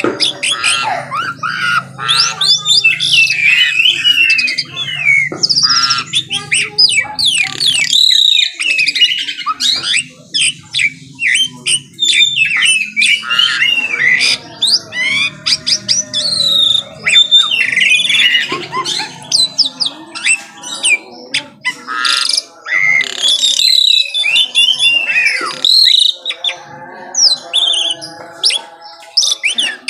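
Asian pied starling (jalak suren) in full song: a busy, unbroken stream of quick whistles, rising and falling slurred notes, chirps and harsh squawks. A faint low hum sits under the first several seconds.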